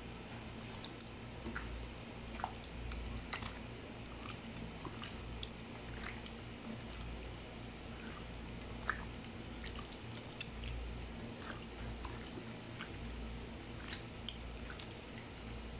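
Wet squelching and smacking of raw chicken wings being mixed by hand with minced garlic and seasoning, heard as scattered soft clicks over a steady low background hum.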